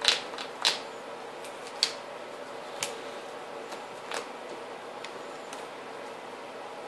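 Trading cards being handled and set down on a table: a handful of short, sharp snaps and clicks, spaced about a second apart, over a steady background hum.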